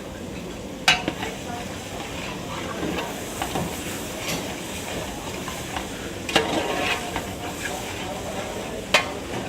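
Masala sizzling in a pot as it is stirred with a metal ladle, with a few sharp clanks of the ladle against the pot: about a second in, around six seconds in, and near the end.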